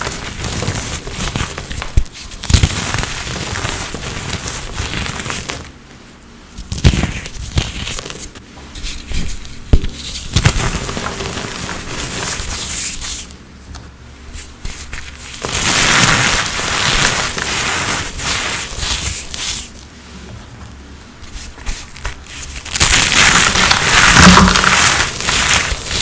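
Blocks of dried, reformed Holi colour powder being crushed: a steady run of crunchy, crackling snaps with powdery crumbling between them. The crushing comes in louder, denser stretches twice in the second half.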